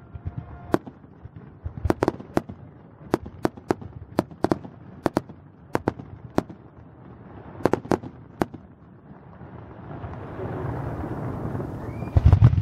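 Fireworks display: aerial shells bursting in a string of sharp, irregularly spaced bangs. A louder low thump comes near the end.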